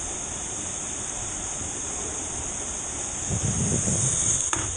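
Steady high-pitched insect chorus over the even rush of a waterfall, with a louder low rushing sound about three seconds in and a sharp click near the end.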